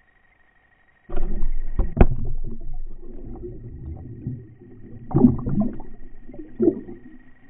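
Underwater camera housing being jostled and dragged through the water: a sudden low rumble with knocks and sloshing, a sharp knock about two seconds in, then two more bursts later on that fade away.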